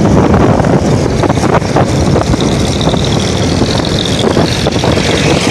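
70cc single-cylinder motorcycle running steadily at road speed, its engine noise mixed with wind rushing over the microphone.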